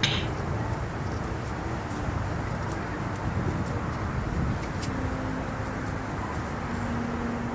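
Steady outdoor background noise: a low, traffic-like rumble with faint held tones in the second half.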